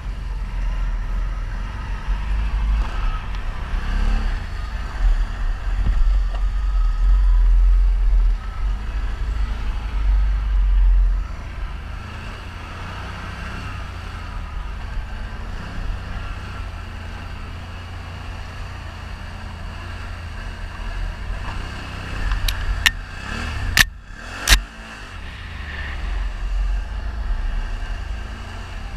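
ATV engines running while riding a trail, heaviest for the first ten seconds or so, then running steadier. A few sharp knocks sound a little past two-thirds of the way through.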